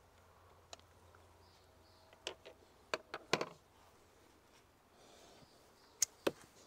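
A few sharp clicks and taps of a screwdriver and hard plastic parts: the RTK GPS receiver being unscrewed from a robotic mower's charging station. Most come in a quick cluster in the middle, with two more near the end.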